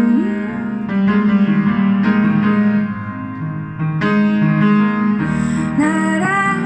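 Upright piano playing a slow ballad accompaniment of sustained chords, with new chords struck about a second in and again about four seconds in; a woman's singing voice comes back in briefly near the end.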